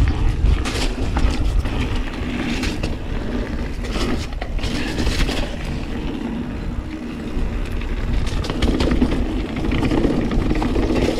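Santa Cruz Hightower 29er mountain bike riding fast down a dirt trail: tyres rumbling over the ground and wind buffeting the camera microphone, with scattered sharp clicks and rattles from the bike.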